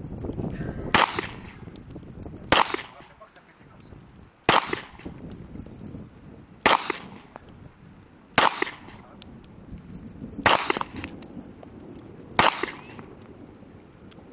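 Glock 17 9 mm pistol fired seven times in slow, steady fire, about one shot every two seconds, each report followed by a short echo.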